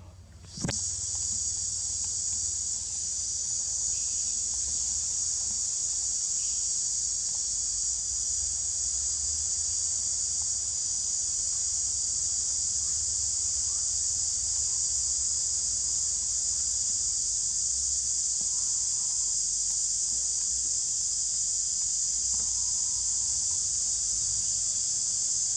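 A steady, shrill chorus of insects droning without a break, starting abruptly about half a second in.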